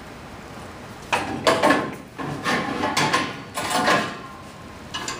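Metal LP fuel cylinder knocking and scraping against a forklift's tank bracket as it is set down and turned to seat on the locating pin. A run of clatter starts about a second in and lasts about three seconds.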